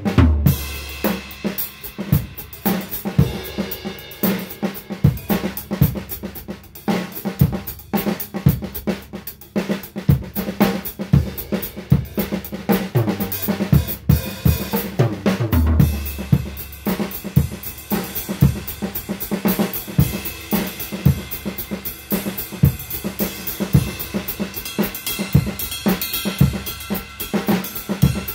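Homemade drum kit played continuously in a groove with fills. The kit has a 3D-printed PLA snare, pine kick and toms built from 2x4s, and hi-hats and crash-ride cymbals. Heavy kick-drum accents come right at the start and again about halfway through.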